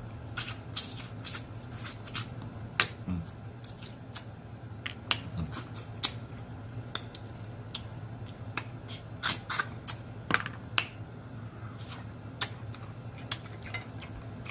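Eating blue crab by hand: irregular sharp clicks and cracks of shell being broken and picked apart, along with mouth sounds, over a steady low hum.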